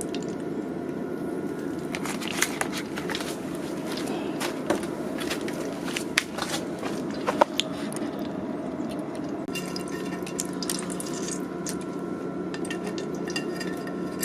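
A red-hot railroad-spike knife blade being quenched in vegetable oil, which sizzles and crackles around the hardening steel. The crackling comes in two spells, over a steady low rushing background.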